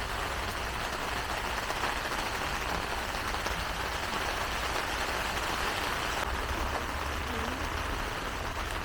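Steady running noise of a car on the move: an even hiss of road and engine noise over a constant low hum.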